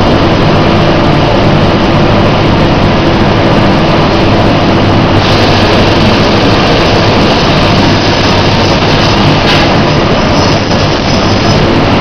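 Feed-bagging machinery running loudly and steadily, a continuous mechanical din with a low hum. About five seconds in a higher hiss joins it, and there is a single short knock near the end.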